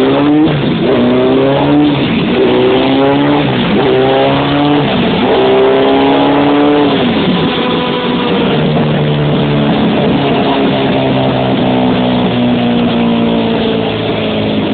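1988 Kawasaki Ninja 750's inline-four engine on a rolling-road dyno, revving up in about five rising steps with a short dip between each, as when shifting up through the gears. About seven seconds in the throttle closes and the note drops, then sinks slowly as the bike winds down.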